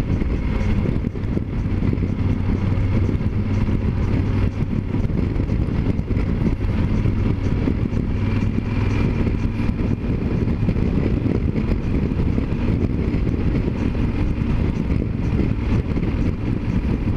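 Yamaha Super Ténéré 1200's parallel-twin engine running steadily at cruising speed, with wind rushing over the microphone.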